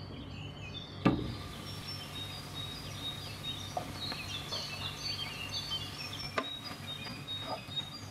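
Small birds chirping and twittering in the background over a steady low hum, with a sharp knock about a second in and another about six seconds in.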